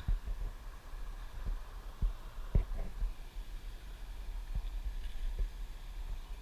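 Low rumble with irregular dull thumps on the microphone, the loudest about two and a half seconds in: handling or wind noise on a body-worn camera.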